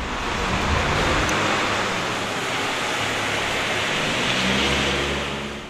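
Traffic on a wet street: a steady hiss of tyres on wet pavement with a low engine hum from passing cars, the hum stronger in the second half.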